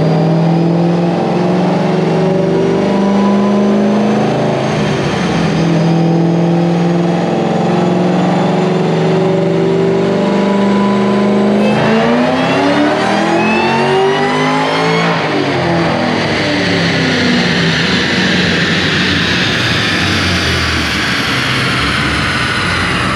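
Cammed, Whipple-supercharged Ford Shelby 5.4 L DOHC V8 running on a chassis dyno: it runs steadily for about twelve seconds, then revs up hard in a full-throttle pull for about three seconds and falls away as it coasts down.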